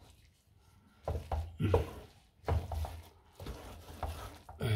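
A spoon stirring and scraping sweet coloured rice (zarda) in a pan, in about four rough strokes roughly a second apart after a quiet first second. The spoon works the bottom of the pan to check that the rice has not stuck.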